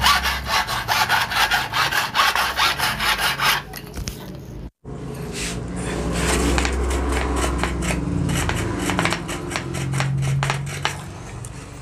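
Hand file rasping back and forth over the freshly hacksawn edge of a cycle pump's thin metal barrel in quick strokes, deburring it so the rubber washer inside won't be cut. A short break comes about four and a half seconds in, and the filing then continues.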